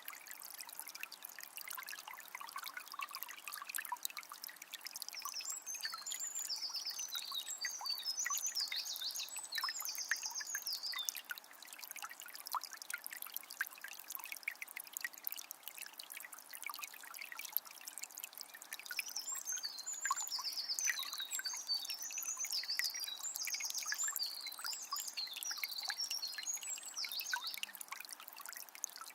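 Water of a small spring trickling and splashing steadily. A songbird sings a long run of high warbling notes twice, once about five seconds in and again about nineteen seconds in.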